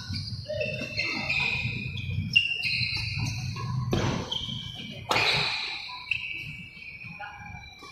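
Badminton doubles rally: sneakers squeak in short high tones on the court, with sharp racket hits on the shuttlecock, the clearest about four and five seconds in.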